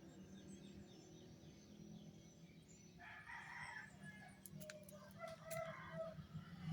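A rooster crows faintly for about three seconds, starting about halfway through, with a few sharp clicks during the crow.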